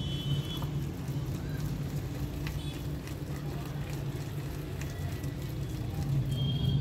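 A hand beating thick gram-flour batter in a bowl, making soft wet squelching and slapping sounds, over a steady low hum.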